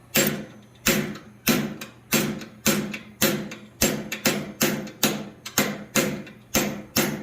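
A hand hammer striking a hot steel bar on an anvil in a steady rhythm of about a dozen blows, one every half second or so, each ringing briefly. The split end of the bar is being spread open and rounded.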